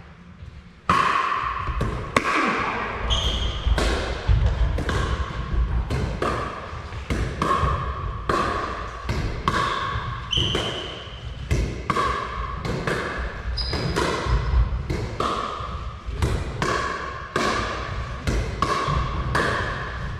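Pickleball rally: sharp pops of paddles striking the hollow plastic ball, about one to two a second, each ringing with echo in a large hall. The hits begin about a second in.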